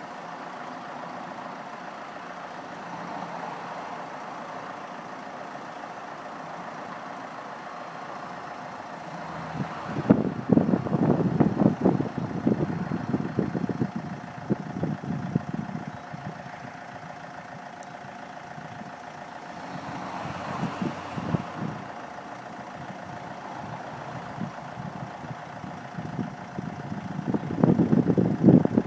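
Steady mechanical hum with spells of louder, uneven low rumbling; the last spell comes as the Autochair Lite roof-box wheelchair hoist starts tilting its box open.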